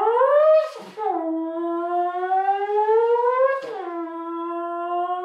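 A man's voice imitating a motorcycle engine: a revving tone that climbs in pitch, breaks and drops back twice, about a second in and near four seconds, like gear changes, then climbs again.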